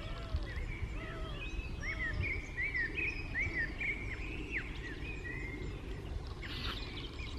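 Small birds chirping again and again in short, quick calls over a steady low rumble, with one brief click near the end.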